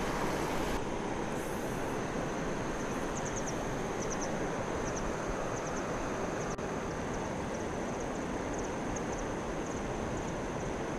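Steady rushing of a mountain stream running high after heavy rain, with faint high chirping calls in short clusters from about three seconds in.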